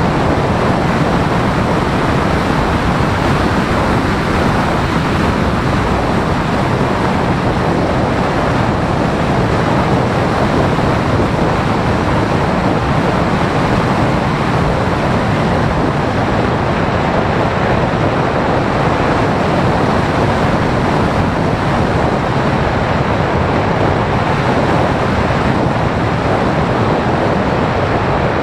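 Loud, steady rush of airflow buffeting the onboard camera's microphone as a Phoenix 1600 model glider flies, with no motor tone audible.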